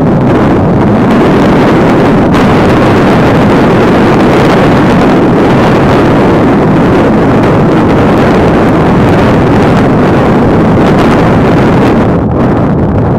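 Wind buffeting the microphone, a loud steady rushing roar that eases slightly near the end.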